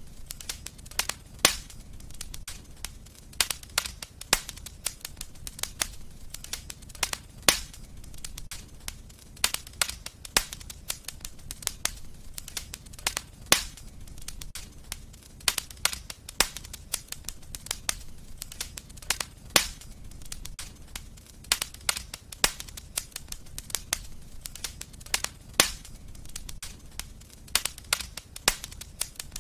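Wood fire crackling: irregular sharp pops and snaps, several a second, over a low steady rumble of burning.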